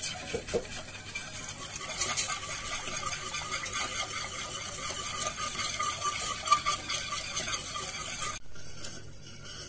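Wire whisk beating béchamel sauce (milk whisked into a butter and flour roux) in a stainless steel pot, a fast continuous scraping and ticking of the wires against the pot; the whisking is kept fast so the sauce does not go lumpy. It stops near the end.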